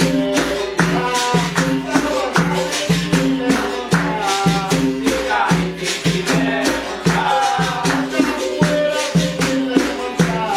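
Capoeira music: berimbaus playing a repeating two-note rhythm with caxixi rattles and percussion, and voices singing over it.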